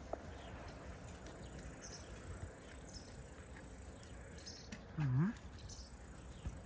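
Quiet outdoor background with scattered faint, high chirps. About five seconds in, a single short, low voice sound dips and then rises in pitch; it is the loudest thing here.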